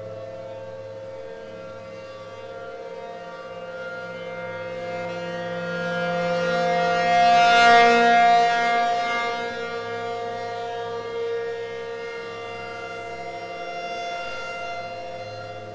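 ACA P50 outdoor warning siren sounding a steady multi-tone wail at a constant pitch during a test. It swells to its loudest about halfway through, then fades again, with a smaller swell near the end.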